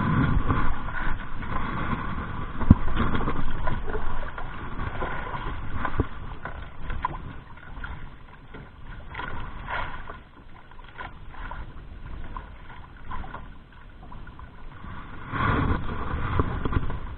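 Sea water splashing and lapping against a small outrigger boat's hull, with a sharp knock from the boat about three seconds in. The splashing is louder in the first few seconds and again near the end.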